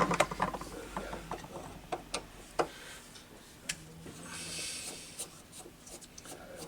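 Irregular light clicks and knocks of hand tools on the metal parts of a tap being taken apart, with a brief hiss near the middle.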